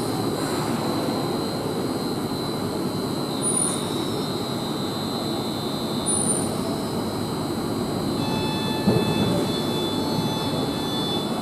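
Heathrow Express Class 332 electric train standing at the platform, its onboard equipment giving a steady rushing hum with a thin high whine; a few more faint whining tones join about eight seconds in.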